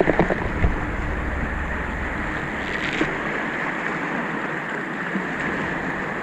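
Small sea waves washing over shoreline rocks with wind, a steady rushing hiss, with a few brief knocks in the first second.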